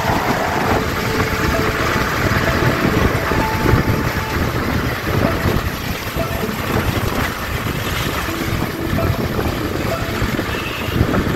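Vehicle driving slowly on a road, with steady road and engine rumble and wind buffeting the microphone; faint voices come through now and then.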